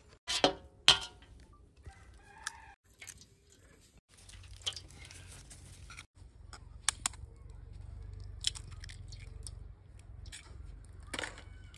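Chickens clucking and a rooster crowing, with a few sharp clicks, the two loudest just under a second in.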